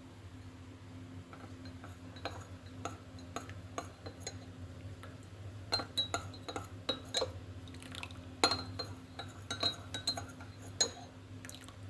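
A metal spoon clinking against a cup as honey is stirred into hot herbal tea. Light scattered chinks come first, then quicker, sharper strikes from about six seconds in.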